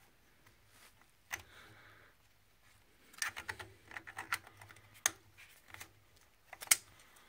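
Irregular clicks and light metallic taps as a brass drain cap is threaded by hand onto the bottom of a magnetic heating-system filter. There is a cluster of quick clicks in the middle, and the loudest tap comes near the end.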